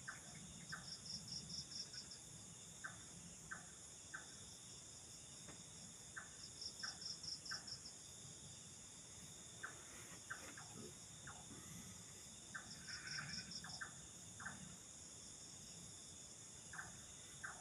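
Faint night chorus of forest insects: a steady high drone of crickets, with a pulsed trill about a second long repeating roughly every six seconds and scattered short chirps.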